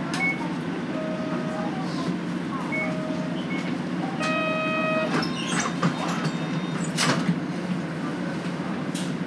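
Inside a city bus: the diesel engine running steadily. Short electronic beeps repeat about every two seconds, and a longer chime sounds about four seconds in. Clatter and a brief burst of hiss follow around seven seconds.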